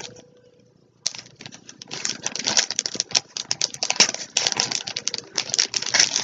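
Rapid, irregular crinkling and rustling of packaging being handled, starting suddenly about a second in after a near-silent moment.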